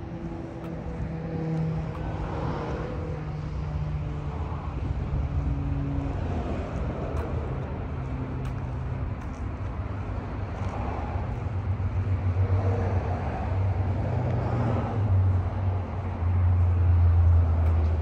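A motor vehicle engine running with a low hum, its pitch drifting slowly, growing louder over the last few seconds.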